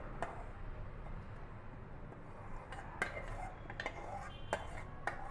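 Metal spoon scraping cooked tomato masala out of a metal kadhai into a steel grinder jar, with short clinks of spoon on pan and jar, one near the start and several more in the second half.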